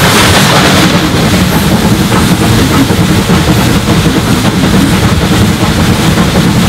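Steam locomotive 35028 Clan Line, a three-cylinder Bulleid Merchant Navy class Pacific, working hard up a 1 in 60 gradient with a fast, steady exhaust beat and rail noise. It is heard close-up from the leading coach's front window, the engine running tender first. A brief brighter hiss comes in the first second.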